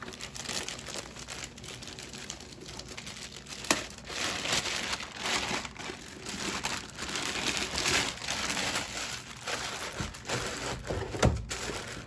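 Clear plastic bag around a robot vacuum crinkling and rustling as the wrapped robot is handled and pulled out, with two sharp knocks, one a little under four seconds in and one near the end.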